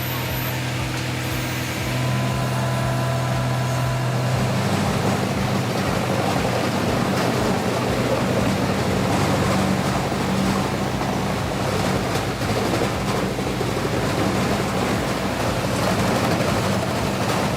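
Large wood chipper running: a steady engine hum, joined about four seconds in by a dense, continuous rushing noise that lasts through the rest.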